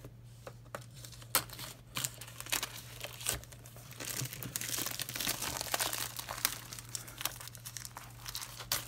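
Clear plastic bag crinkling and rustling as it is cut open with scissors and pulled off a small cardboard kit box, with scattered sharp clicks; the crinkling is thickest in the middle.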